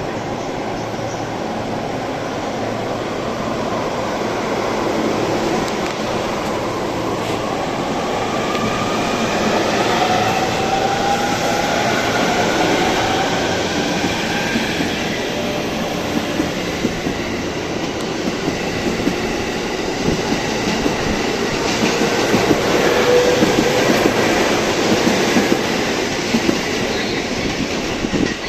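E233 series electric train pulling away: its traction motors give a rising whine as it picks up speed. Later, rhythmic wheel clatter over the rail joints grows louder.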